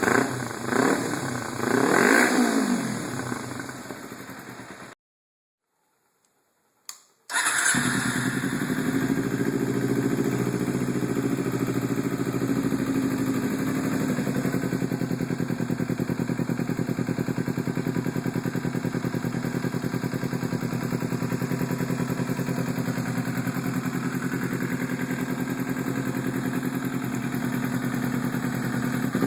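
Kawasaki Ninja 250R's parallel-twin engine through an aftermarket exhaust: two quick revs that fall away, then after a break of about two seconds the engine starts and settles into a steady idle.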